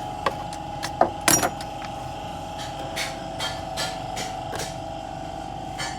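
Hand tools knocking and tapping on metal: a few sharp knocks in the first second and a half, then a run of about six evenly spaced taps, roughly two or three a second, over a steady hum.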